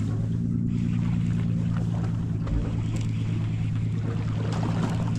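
Steady low hum of a fishing boat's engine idling, with a hiss of water around the hull.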